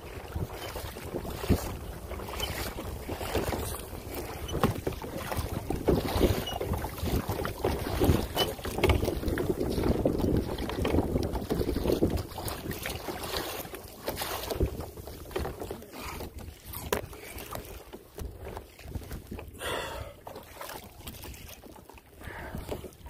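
Water splashing and lapping around a kayak, with wind buffeting the microphone in uneven gusts.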